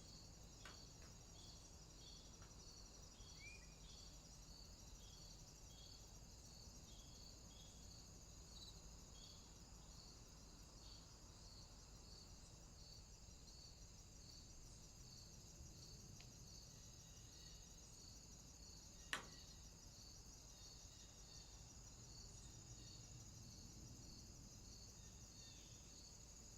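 Faint insect chirping: a steady high trill pulsing about twice a second, with one sharp click about nineteen seconds in.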